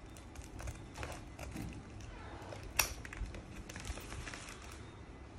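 Scissors snipping through a plastic mailing envelope, a run of short clicks with crinkling of the plastic and one sharper click about three seconds in.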